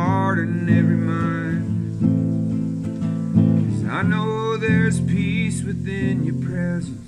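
A man singing while strumming chords on an acoustic guitar. The guitar rings on throughout, and the voice comes in at the start and again from about four seconds in.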